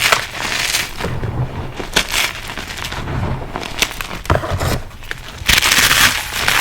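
Reformed gym chalk and cornstarch crunchies being crushed in a bowl: repeated dry crunching and crackling, with a dense, louder crunch about five and a half seconds in.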